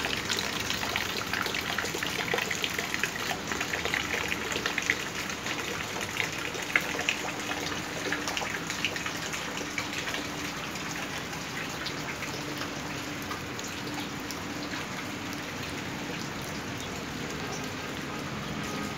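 Heavy rain falling on a garden: countless drops hitting wet paving, puddles and leaves, and a stream of runoff splashing into a full container of collected rainwater. It is a little louder in the first few seconds, then eases slightly.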